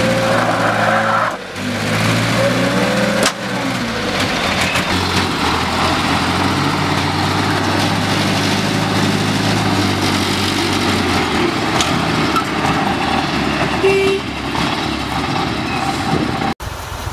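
Truck and car engines running: the revs rise and fall a few times in the first three seconds, then settle into a steady engine note. The sound cuts off abruptly near the end.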